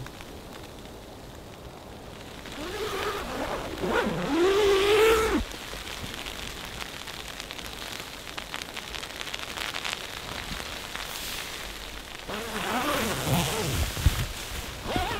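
Fine sleet pattering on a tent tarp, a steady fine ticking, broken by two louder drawn-out sounds that rise and fall in pitch, the first and loudest about three to five seconds in, the second near the end.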